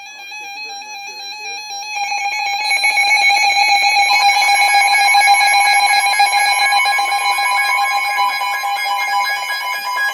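Emergency Alert System two-tone attention signal, a steady electronic tone pair near 853 and 960 Hz, jumping louder about two seconds in. It signals that a severe thunderstorm warning is about to be read.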